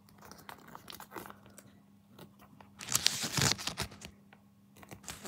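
Paper collection-guide leaflet rustling and crinkling as it is unfolded and handled, with a louder burst about three seconds in.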